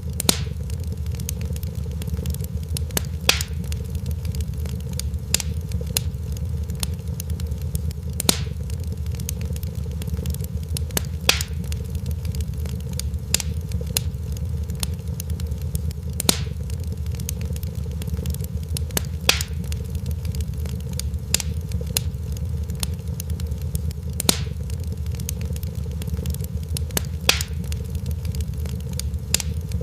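Fireplace fire crackling over a steady low rumble, with many small ticks and a sharper, louder pop every two to three seconds.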